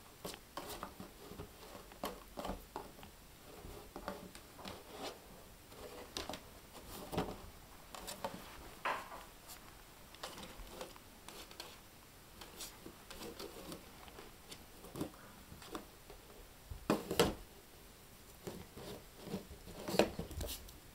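Small cardboard box scraping, rustling and knocking across a carpet as a young Jack Russell puppy shoves it with its head, mixed with the patter of its paws. There are many short scrapes and clicks, with two louder knocks about three seconds apart in the last few seconds.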